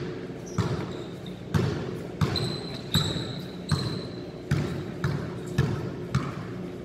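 Basketballs bouncing on a hard court during a warm-up, an irregular run of thuds about every half-second to second from more than one ball. A few short high squeaks, like sneakers on the floor, come near the middle.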